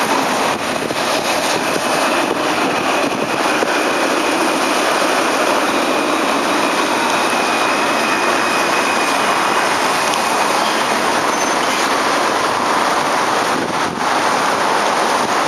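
Alstom Citadis tram approaching on wet track and running in close alongside: a steady rolling hiss with a faint high whine through the first half.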